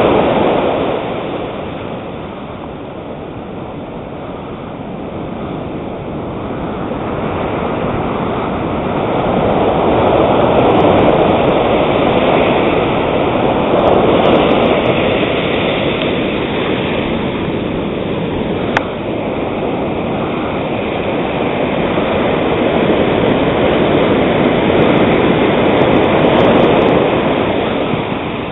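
Small ocean waves breaking and washing up a sand and rock beach: a steady hiss of surf that swells and eases, loudest about a third of the way in and again near the end. One sharp click about two-thirds of the way through.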